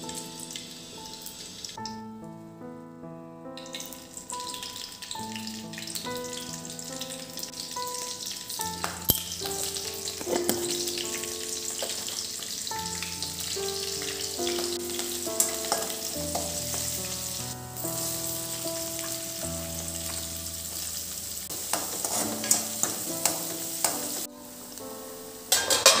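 Cumin seeds and chillies sizzling and crackling in hot oil in a kadai as a tadka, the sizzle building up after the first few seconds, with a few ladle clicks and scrapes near the end. Soft instrumental background music with a melody runs underneath.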